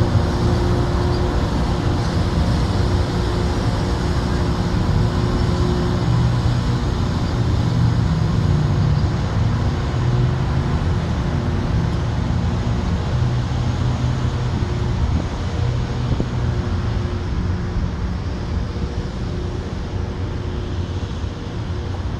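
Loram rail grinder train running with a steady, loud machine drone: a low engine hum under a rough, hissing noise, easing slightly near the end.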